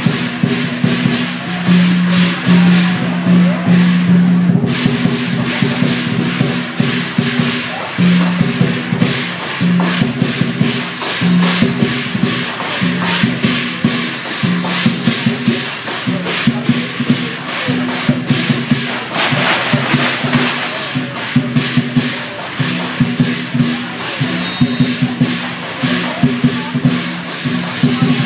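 Chinese dragon-dance percussion band of drum and cymbals playing a fast, steady beat.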